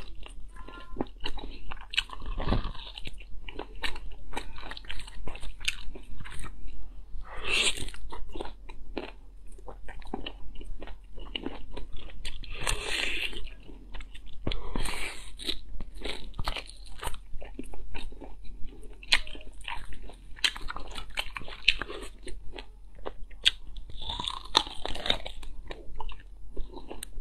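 A person eating close to the microphone: biting and chewing soft, fatty meat, with many quick wet mouth clicks and three longer, louder noisy bursts.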